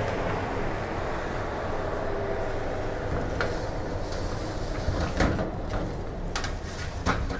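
Metal baking trays sliding onto the racks of a convection oven, with several sharp metal clanks in the second half, the loudest about five seconds in. Under them, the oven's blower fan hums steadily.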